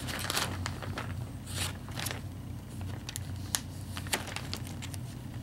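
A clear plastic zip-top bag of soft plastic fishing lures being handled and closed: scattered crinkles, clicks and rustles of the plastic, over a steady low hum.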